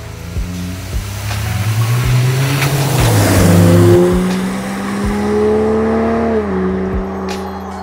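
Ineos Grenadier's BMW B58 3.0-litre turbocharged straight-six breathing through a Milltek Sport particulate-filter-back exhaust, accelerating hard. Its note rises steadily in pitch for several seconds, then drops sharply near the end.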